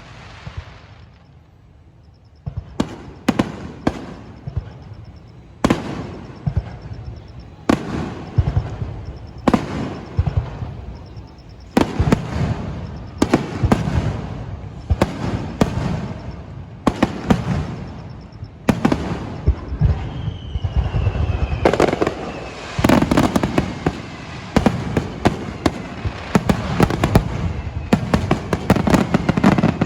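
Fireworks finale: aerial shells bursting with sharp bangs and echoing rumbles, a second or two apart at first, then faster and denser toward the end. From about two-thirds of the way through, whistles gliding down in pitch sound among the bursts.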